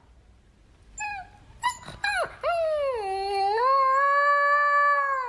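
Dog howling: a few short yips, then from about halfway a long wavering howl that dips and rises again and is held steadily.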